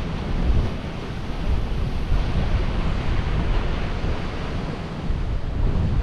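Ocean surf breaking and washing into limestone cliffs and rock inlets, a continuous churning rush with a heavy low rumble, with wind buffeting the microphone.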